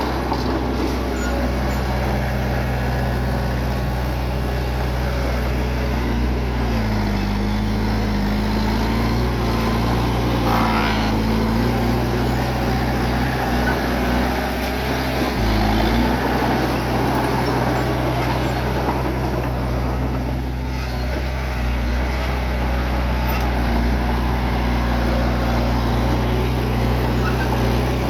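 Bulldozer's diesel engine running steadily, its pitch dipping and rising for several seconds midway.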